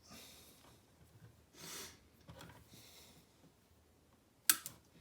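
Quiet handling of cable conductors while earth sleeving is slid on, with a few soft breaths through the nose. Two sharp clicks come close together about four and a half seconds in.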